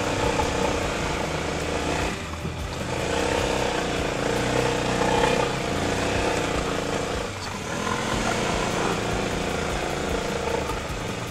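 Motor scooter engine running over a rough gravel track, its pitch rising and falling with the throttle, under steady tyre and wind noise.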